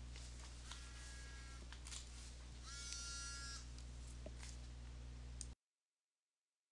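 Faint steady electrical hum and room noise on the recording, with a few soft computer-keyboard clicks in the first two seconds and a brief faint whine near the middle. The sound cuts off suddenly about five and a half seconds in.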